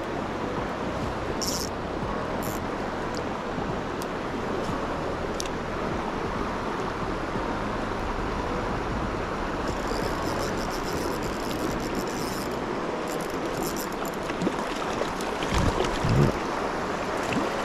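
Steady rush of a clear, shallow river running over stones, with light wind on the microphone. A cluster of faint clicks comes about two-thirds of the way through, and a couple of low bumps come near the end.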